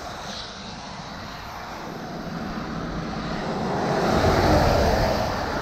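Road traffic noise: a semi-truck drives past close by on the highway, its engine rumble and tyre noise swelling to a peak about four seconds in.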